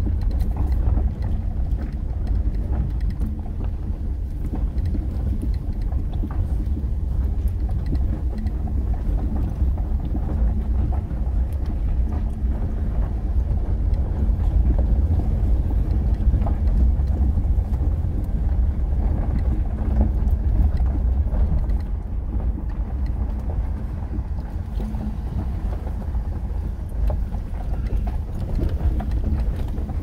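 2011 Subaru Outback rolling slowly down a gravel road, heard from inside the cabin: a steady low rumble of engine and tyres with scattered small ticks of gravel under the tyres.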